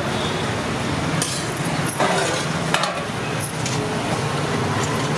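Steel ladles clinking a few times against steel serving pots and a steel plate as rice and curry are dished out, over steady road-traffic noise.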